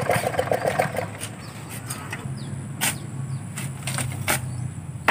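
Steel shovels digging and scraping in wet river sand: a rapid rasping scrape in the first second, then a few sharp clinks of blade strikes, over a low steady hum.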